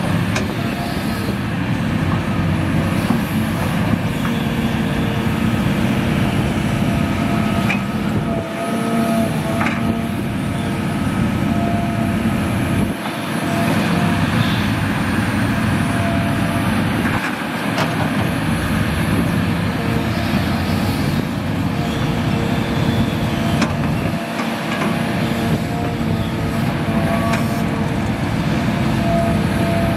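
Large Hitachi Zaxis 350H excavator's diesel engine running steadily under load while digging and loading soil, with a thin wavering whine over it. The low engine sound drops away briefly four times.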